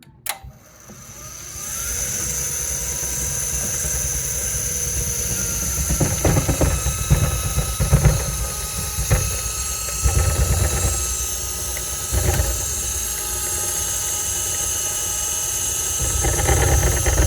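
A machine clicks on and builds up over a second or so to a steady whirring run, with a loud gravelly grinding underneath that swells in rough bursts several times. The noise is judged to be getting worse.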